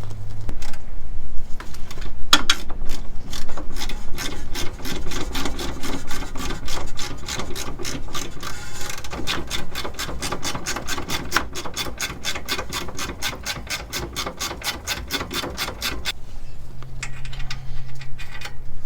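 Hand ratchet wrench clicking steadily, about five clicks a second, as a fastener is worked, from about two seconds in until near the end.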